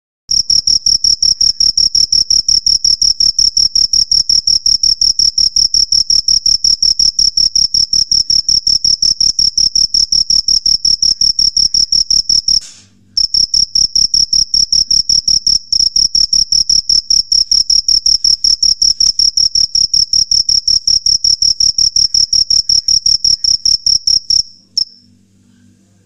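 Male black field cricket calling: a high, steady-pitched chirp made by rubbing its wings together, repeated rapidly and evenly. It breaks off briefly about halfway through and stops shortly before the end.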